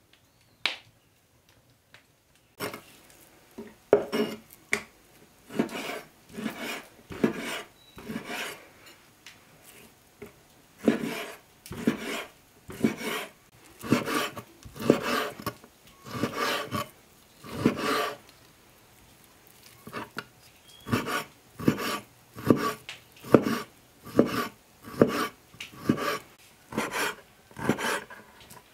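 Large kitchen knife slicing raw beef into strips on a wooden cutting board. A run of drawn cutting strokes, roughly one to two a second, starts a couple of seconds in.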